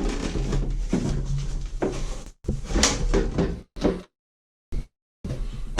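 Knocking, clunking and scraping of toilet parts being handled and fitted back together, in irregular spurts with short breaks.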